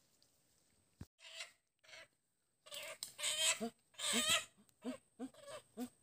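Chickens clucking and squawking: loud squawks around three to four seconds in, then a run of short clucks about two or three a second. A sharp knock comes about a second in.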